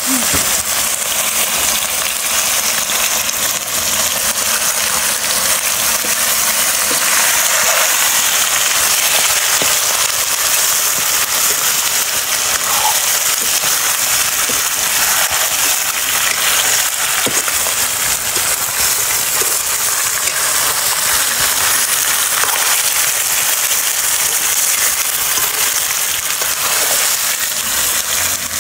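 Hot cooking oil sizzling and crackling steadily in a pan, heating for frying chicken, with a constant run of small pops.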